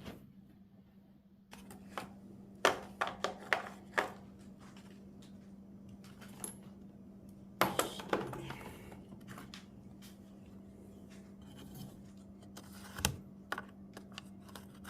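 Handling of the oil bottle and funnel: scattered clicks, taps and light knocks of plastic, loudest in a cluster about two to four seconds in and again about halfway through and near the end, over a steady low hum.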